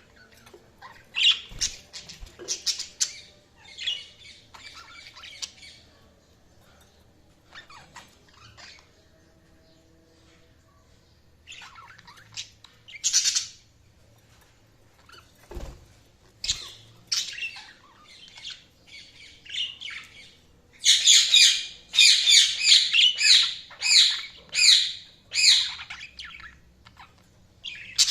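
Budgies (budgerigars) chirping and squawking in short bursts with pauses between, building to a loud run of rapid repeated calls near the end.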